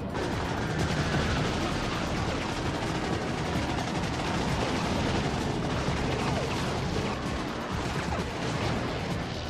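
Dense, continuous rattle of rapid machine-gun fire, without a break.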